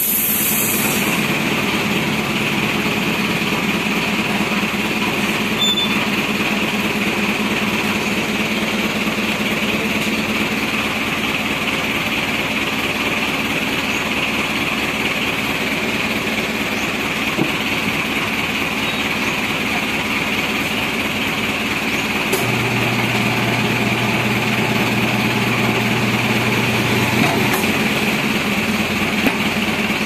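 Steady mechanical drone of a piston air compressor running, with a deeper hum coming in for about five seconds near the end.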